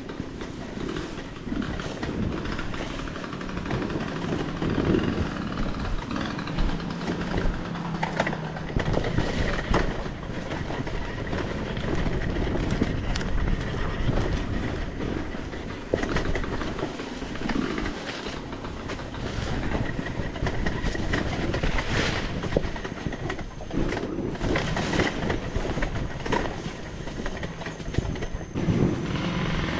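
Enduro dirt bike under way on a rough trail: the engine runs with a steady rumble and rattling clatter, and revs up near the end.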